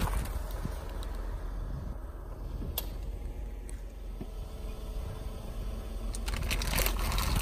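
Smart car rolling slowly on asphalt with a low, steady rumble, a sharp click a few seconds in, and rising crackling near the end as plastic bottles and balloons under the tyre begin to give.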